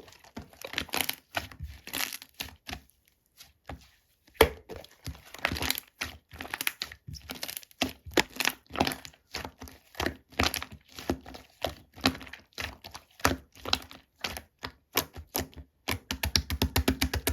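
Slime being pressed and squeezed by hand, giving off irregular crackling pops and clicks, with a quick run of pops near the end.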